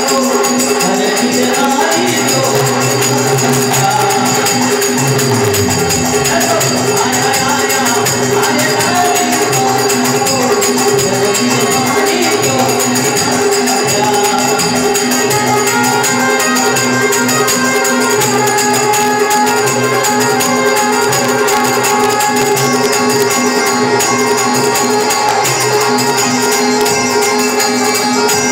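Live Rajasthani devotional bhajan music: harmonium and electronic keyboard holding steady notes over a fast jingling beat of hand percussion and a dholak.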